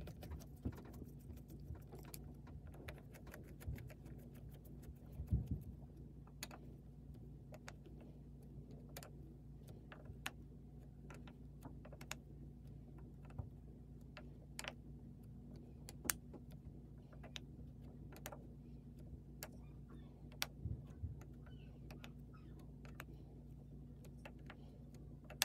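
Screwdriver turning the cover screws of a Teleflex MBU fuel regulator: faint, irregular metal clicks and ticks as the tip works in the screw heads, with a couple of heavier knocks from handling the regulator, over a faint steady hum.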